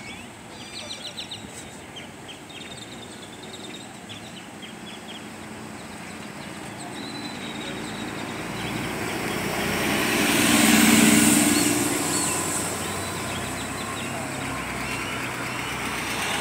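A motor vehicle drives past on the street, its engine and tyre noise building up to its loudest about ten to eleven seconds in, then easing off. A few bird chirps sound in the first few seconds.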